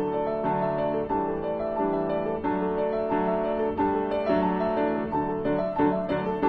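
Background piano music, an even run of short notes.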